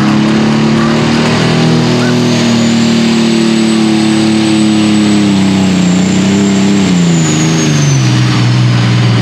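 Turbocharged diesel engine of a John Deere super stock pulling tractor running at full throttle under the load of the sled, with a high turbo whine. The engine note holds steady, then drops in pitch over the last few seconds as the load pulls the revs down. The whine rises about two seconds in and fades near the end.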